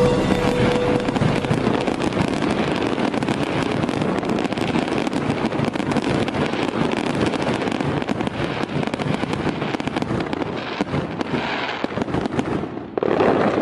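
Fireworks and firecrackers crackling in a dense, unbroken string of pops, with a louder burst near the end.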